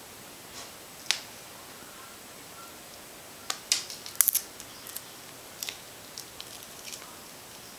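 Shattered tempered-glass screen protector crackling and snapping as it is pried off a phone screen in pieces: scattered sharp clicks, with a dense cluster about halfway through.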